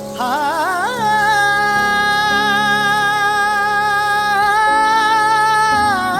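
Music: a female voice sings a wordless line that wavers upward in quick ornaments, then holds one long high note for about five seconds and bends down near the end, over steady low accompaniment.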